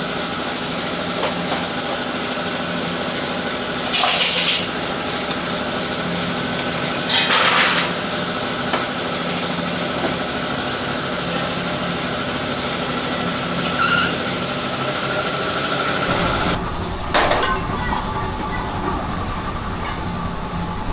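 Steady mechanical hum with two short hisses of air, about three seconds apart; a low rumble comes in near the end with a sharp click.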